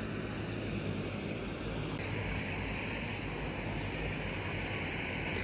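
Floatplane's propeller engine running as a steady low drone with a wide hiss over it. The hiss changes character about two seconds in.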